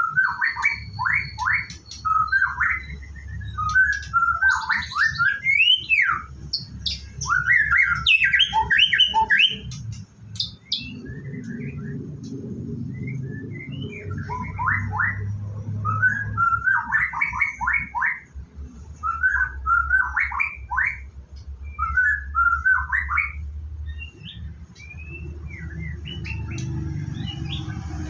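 White-rumped shama (murai batu) singing: several short phrases of quick, varied chirping notes with brief pauses between them, over a steady low hum.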